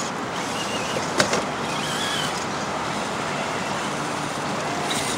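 Steady rush of river water running over rock shoals, with a single sharp click about a second in.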